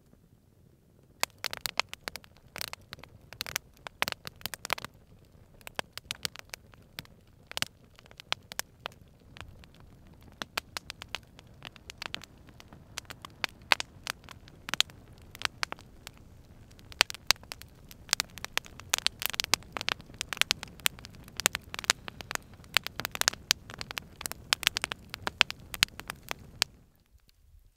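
Wood fire of dry sticks crackling, with dense, irregular sharp pops that begin about a second in and stop abruptly near the end.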